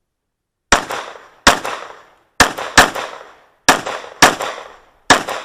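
Sig P365 9mm pistol firing seven shots, spaced under a second apart with some in quick pairs, each ringing out with echo.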